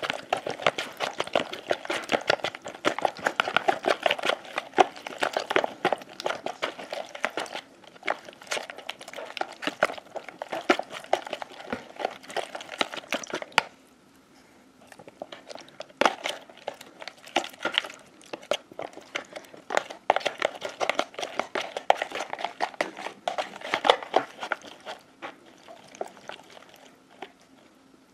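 Plastic mixing stick stirring white glue and borax solution in a clear plastic bowl: a steady run of rapid scraping, tapping and clicking against the bowl, pausing briefly about halfway through.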